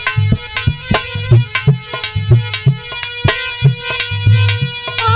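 Harmonium holding steady notes over a brisk hand-drum rhythm of several strokes a second, with deep bass thuds about every half second.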